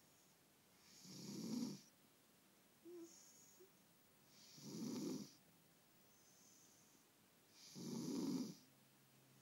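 A domestic cat snoring like a person: three snores about three seconds apart, each swelling to a peak and lasting under a second, with soft breaths in between.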